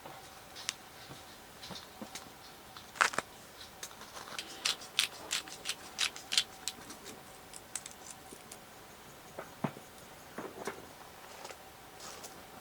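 Handling of cooking gear and food packaging: a quick run of sharp clicks and light clatter, densest about four to six seconds in, with a few more near the end, over a faint steady tone that stops about eight seconds in.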